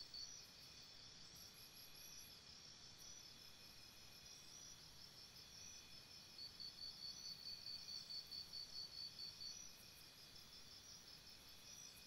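Faint chorus of crickets chirping, with several steady high trills layered together. A louder chirp repeating about five times a second stands out from about six and a half to nine and a half seconds in.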